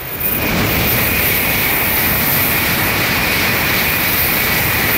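A Tokaido Shinkansen bullet train passing at speed: a loud, steady rushing noise that comes up sharply just after the start, with a steady high whine above it.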